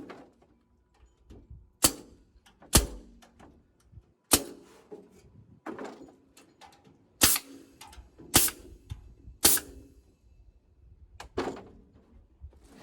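Sheet metal from a water heater's outer shroud being knocked and struck during assembly of a nesting box: about seven sharp metallic bangs at uneven intervals, each ringing briefly.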